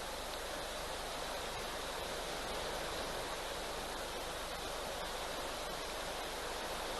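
Steady rushing hiss of river water flowing, even and unbroken, with a few faint ticks.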